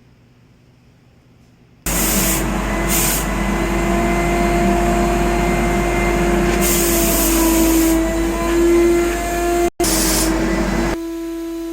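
A motor-driven air machine, most likely spray equipment for refinishing the tub, starts suddenly about two seconds in and runs with a steady hum and a loud hiss of air, which surges brighter several times. The sound cuts out for an instant, and about a second before the end the hiss stops while the motor hum carries on more quietly.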